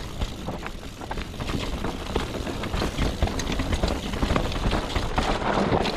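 Mountain bike riding fast down a dirt forest trail: wind rumbling on the microphone, tyres running over dirt and leaves, and the chain and frame rattling in constant quick clicks and knocks over the rough ground.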